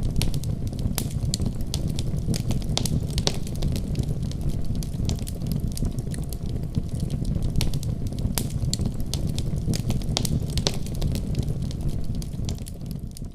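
Wood fire in a fireplace crackling, with many sharp pops over a steady low rumble. It fades out near the end.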